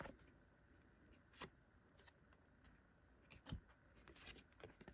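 Faint ticks and soft scrapes of basketball trading cards being slid one at a time off a stack held in the hand, card rubbing on card every second or so, with a small cluster of them near the end.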